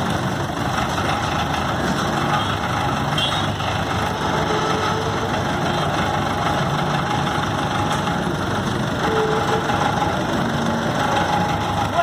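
Vintage road roller's engine idling steadily.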